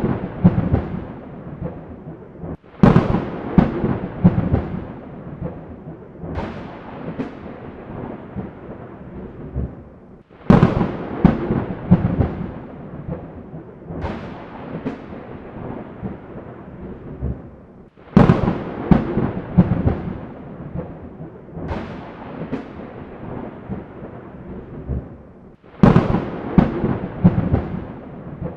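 Thunderstorm: a sharp crack of thunder every few seconds, each trailing off into crackling, rolling rumble, over a steady wash of rain. The loudest cracks come back at an even spacing of about eight seconds, like a repeating loop.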